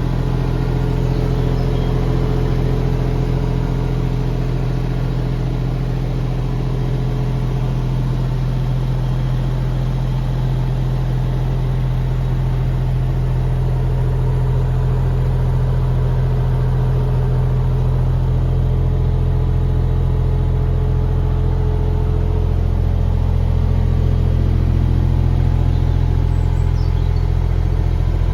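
Diesel engine of a 2006 JCB 8030 ZTS mini excavator running steadily at constant speed, a little louder in the second half.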